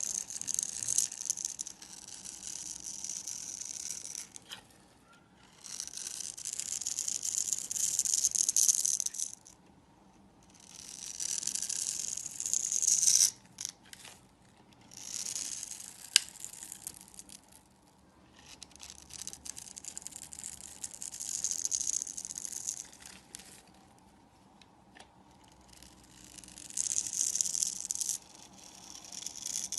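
A knife scraping and shaving a bar of soap in about six crisp passes of two to four seconds each, with short pauses between and a sharp click about 16 seconds in.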